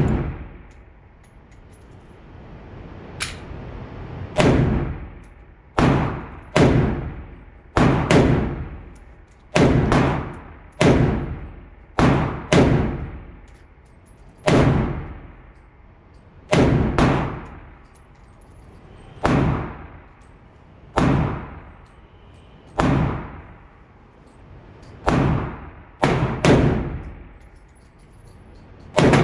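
Radical Firearms AR-15 rifle fired semi-automatically at a slow, uneven pace, about twenty shots, some in quick pairs. Each shot trails off in echo. This is slow fire while breaking in a new rifle and zeroing its sight.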